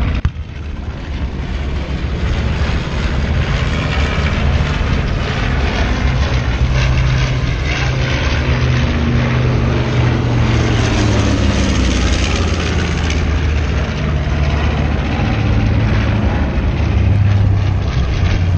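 Propeller aircraft flying low past the crowd, a steady drone of piston engines whose pitch slides slowly as they pass.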